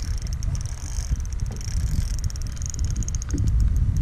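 Wind rumbling on the microphone, with a fast high ticking running above it.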